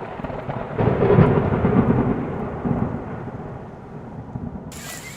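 Rolling thunder rumbling, swelling about a second in and slowly fading. Near the end it cuts abruptly to a steady hiss of rain.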